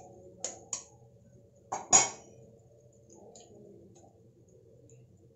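An egg being tapped against a steel spoon to crack its shell: sharp clicks, two close together near the start and a louder pair about two seconds in, the last the loudest.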